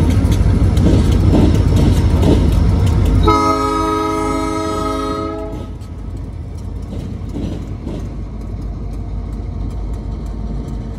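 Diesel locomotives rumble loudly past. About three seconds in, the train's air horn sounds one steady chord for about two seconds. Then the quieter rolling of the rail-train flatcars follows, with faint wheel clicks.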